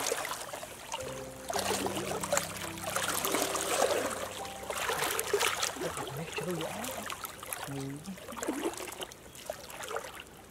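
Shallow stream water splashing and sloshing around a person wading through it and sweeping a hand under the surface.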